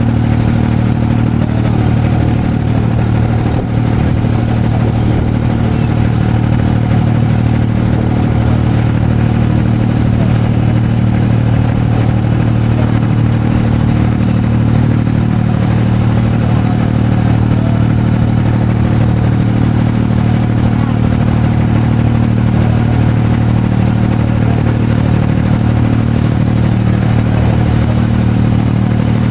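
Small boat's engine running steadily on board while cruising, a constant low drone with no change in pitch.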